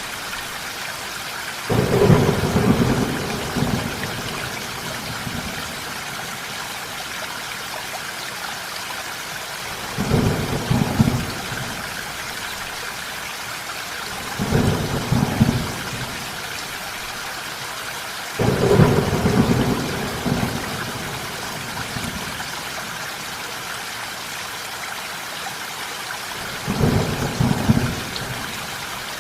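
Steady rain with thunder: five low rumbles of thunder break in suddenly over the rain's even hiss, each lasting one to three seconds.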